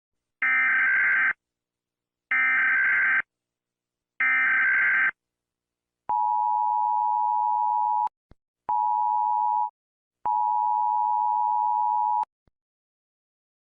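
US Emergency Alert System alarm: three short screeching digital header bursts, then the steady two-note attention tone sounding three times (long, short, long), each cutting off sharply.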